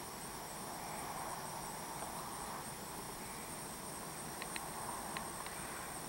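Honey bees buzzing in flight in front of a row of hives during a strong goldenrod nectar flow. A soft, steady hum swells twice as bees pass close, with a few faint clicks between about four and a half and five and a half seconds in.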